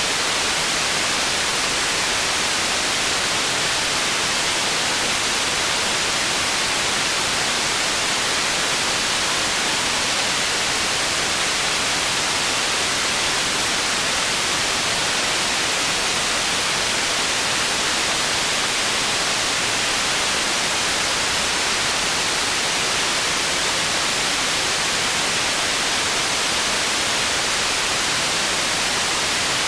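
Processed white noise for tinnitus masking: a steady, even hiss weighted toward the high frequencies, with little low end and no change.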